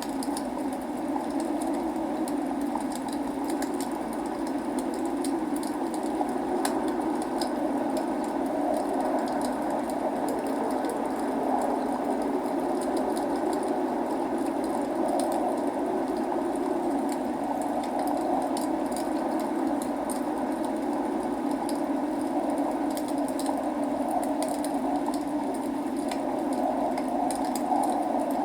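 Log fire burning in a fireplace, crackling with a constant scatter of small sharp pops, over a steady rushing sound of rain.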